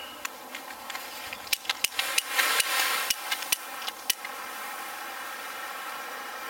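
A cluster of sharp clicks and knocks with a brief rustle, from about a second and a half to four seconds in, over a faint steady hum.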